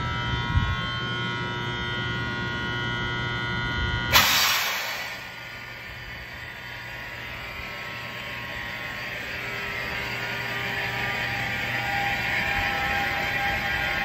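NJ Transit ALP-45DP locomotive humming and whining with several steady tones as it moves slowly off. About four seconds in, a sudden loud hiss fades within a second, and then a steady hiss and a faint whine slowly build.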